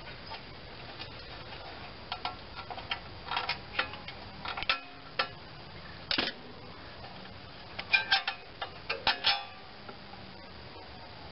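Scattered metallic clicks and clinks of a ratchet, socket and loosened engine parts being handled, in small clusters, with a quick run of louder clicks about eight seconds in.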